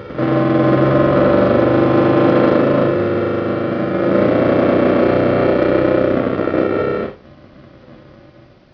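Circuit-bent electronic noise box (The Thing II) in drone mode, giving out a loud, distorted, growling drone of many layered tones, used as a monster sound effect. It cuts off suddenly about seven seconds in, leaving only a faint remnant.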